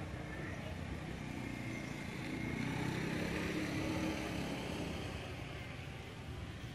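A motor vehicle's engine passing by, growing louder about two seconds in and fading again before the end, over a steady outdoor background.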